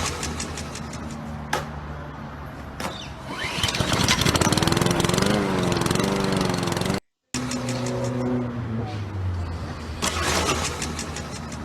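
Small petrol lawnmower engine starting and running, played as a soundtrack clip. It breaks off with a short cut about seven seconds in, then starts again.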